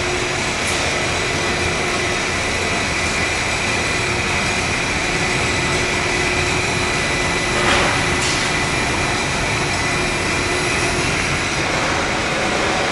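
Textile fabric compactor running steadily as knit fabric feeds through its rollers: a dense mechanical hum with a faint steady whine over it, and a brief louder burst of noise about eight seconds in.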